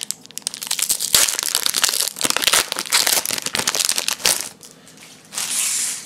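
Foil wrapper of a Magic: The Gathering booster pack being torn open and crinkled in the hands as the cards are pulled out: dense crackling that stops about four and a half seconds in, followed by a short rustle near the end.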